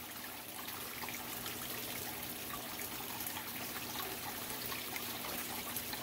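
Aquarium waterfall splashing and trickling steadily onto the tank's water surface, over a faint steady hum.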